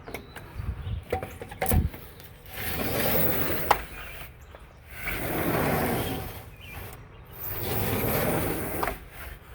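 Sliding screen door rolled along its track three times, a rumbling rub swelling and fading on each pass, after a few knocks at the start. Its track strip is coming loose, but the door still runs.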